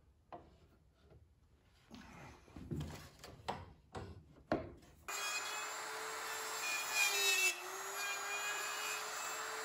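Wooden boards knocked, rubbed and clicked into place in a dovetail jig, then about halfway through a handheld router runs steadily, its pitch sagging briefly while it cuts dovetails in the drawer boards through the jig's finger template.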